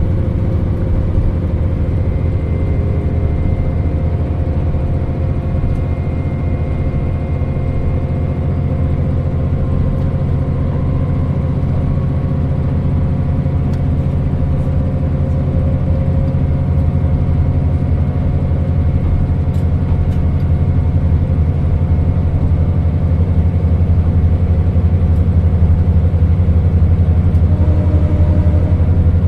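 KiHa 40 diesel railcar running, a steady low diesel engine drone that grows slightly louder through the second half.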